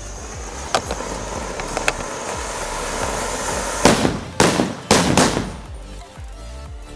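Anar fountain firework hissing as it sprays sparks, then four sutli bombs (twine-wrapped firecrackers) going off one after another with loud bangs, about four seconds in, within about a second and a half.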